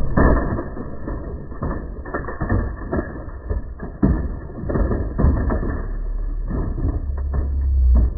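Plastic toy trucks rolling down a wooden ramp and knocking into a row of toy cars on the grass: a string of irregular thuds and clatters, with a low rumble building near the end.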